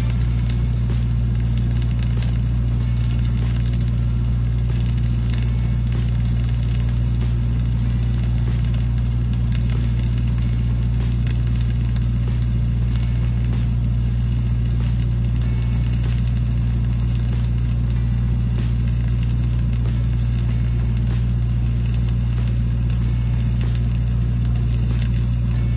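Flux-cored arc welding, the arc crackling steadily, over the steady drone of an engine-driven welding machine running.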